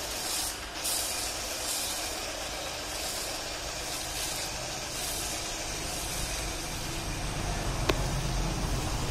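Car-wash foam lance spraying snow foam onto a car: a steady hiss that swells and fades about once a second. A single sharp click near the end.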